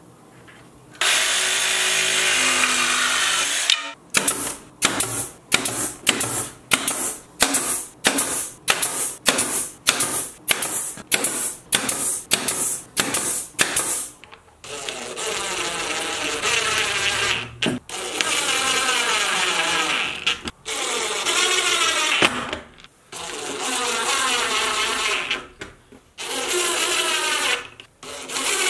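A cordless nailer firing about twenty nails in quick succession, roughly two a second. Then a DeWalt cordless impact driver runs in several bursts of a few seconds each, driving screws.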